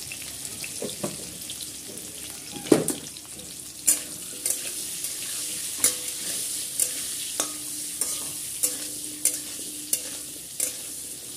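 Cubed potatoes sizzling in hot oil in an aluminium kadai while a steel spatula stirs them. The spatula scrapes and clinks against the pan repeatedly, the sharpest knock about three seconds in, then about every half second to second from about four seconds on.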